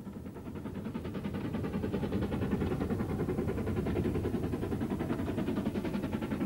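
Steam train running with a fast, even beat, growing louder over the first couple of seconds and then holding steady.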